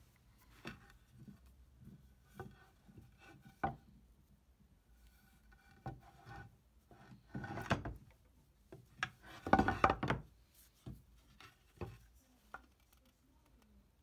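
An old wooden mallet head and a white oak board are handled on a workbench. There are scattered light wood-on-wood knocks and taps, with two louder bursts of scratchy rubbing about halfway through.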